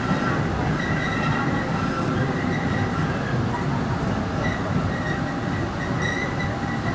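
MBTA Green Line light-rail car running through the subway tunnel, heard from aboard: a steady low rumble of wheels on rail, with high wheel squeal that comes and goes.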